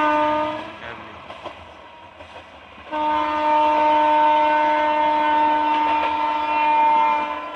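WAP-5 electric locomotive's air horn: a blast that cuts off within the first second, then a long steady blast of about four and a half seconds starting about three seconds in. Quieter train running noise fills the gap.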